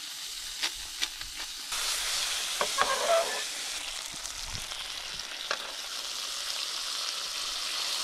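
Food sizzling in a frying pan on a camp cooker, the sizzle getting louder a little under two seconds in. A few light clicks of a utensil against the pan in the first three seconds.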